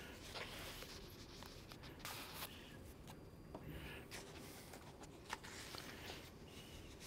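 Pages of a paperback book being turned and leafed through near a microphone: faint papery rustles that come and go, with a few light clicks, the sharpest about five seconds in.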